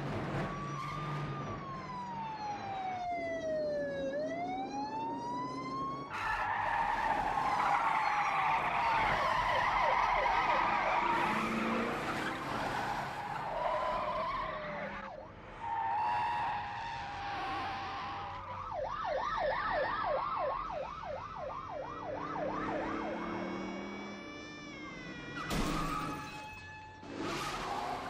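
Car chase: police sirens wailing up and down in pitch, with a fast yelping siren a little past the middle, over screeching tyres and hard-running car engines. A sudden loud burst of noise comes near the end.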